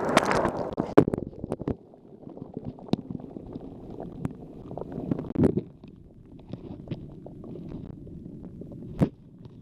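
Water sloshing around an action camera as it dips under in a shallow tide pool. After the first couple of seconds it gives way to a low, muffled underwater rumble with scattered sharp clicks and knocks.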